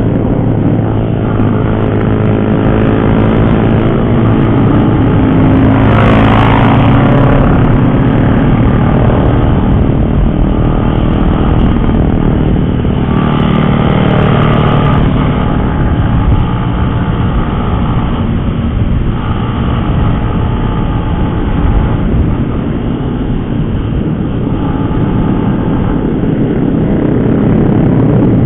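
Single-cylinder motorcycle engine running steadily under way on the road, with heavy low rumble. About six seconds in there is a brief louder passing noise with a rise and fall in pitch, and another around the middle.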